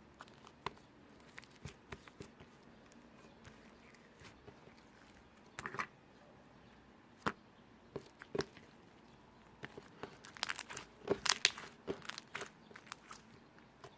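Hands squishing and pressing slime, making scattered sticky clicks and small pops, with a denser run of louder pops about ten to twelve seconds in.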